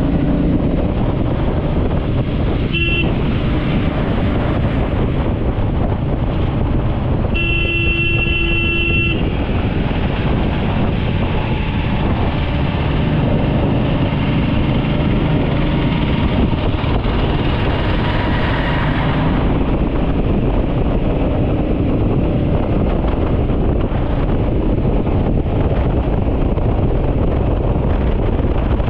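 Motorcycle riding at road speed: steady engine, road and wind noise on the microphone. A vehicle horn toots briefly about three seconds in, then sounds again for nearly two seconds around eight seconds in.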